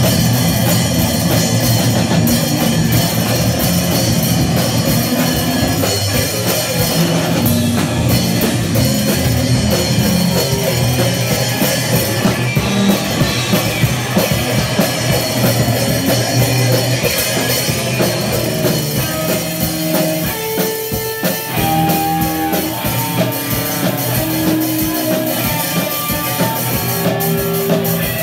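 Punk rock band playing live: loud drum kit with cymbals and distorted electric guitar. In the second half, separate held guitar notes stand out over the drums.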